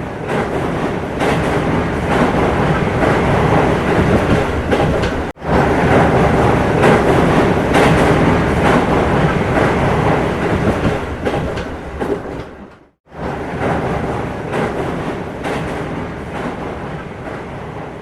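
Train running on rails with a rolling clatter, in three clips joined by abrupt cuts about five and thirteen seconds in.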